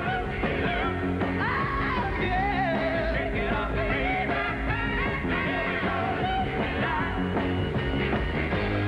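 A 1960s beat group playing an upbeat rock and roll song, with male voices singing over electric guitars and drums.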